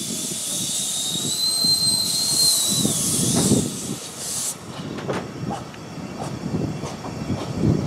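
Narrow-gauge steam train running, heard from a carriage. For the first four and a half seconds a high hiss of steam comes with a thin squeal from the wheels on the curve. The hiss then cuts off abruptly, leaving the carriage's rumble and the clicks of its wheels over rail joints and points.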